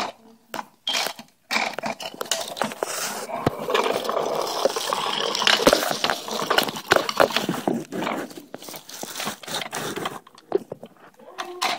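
Plastic toy garbage truck handled close to the microphone: dense crackling and scraping with many sharp clicks and clatters, busiest in the middle and thinning out near the end.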